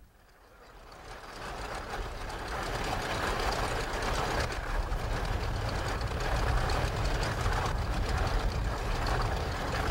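Outboard motors of many bass boats running on the water, heard as a steady low rumble with hiss that fades in over the first two seconds or so.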